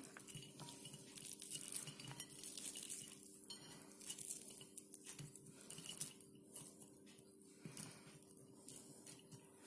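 Faint clicks and rustles of sliced onion being handled: pieces scraped together on a plastic cutting board, then pulled apart into rings by hand on a ceramic plate, with light taps against the plate.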